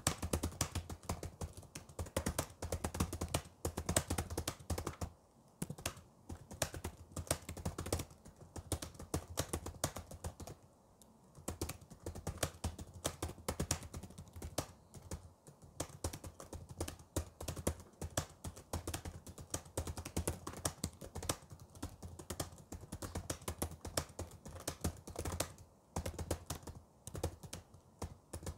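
Fast typing on a computer keyboard: a rapid, uneven patter of key clicks that pauses briefly three times.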